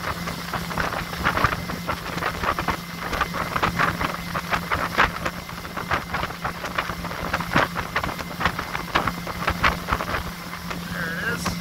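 90 horsepower Mercury four-stroke outboard running steadily flat out, near 6,000 RPM, on a pontoon boat under way. Its steady hum sits under gusting wind noise on the microphone and irregular crackling splashes of water.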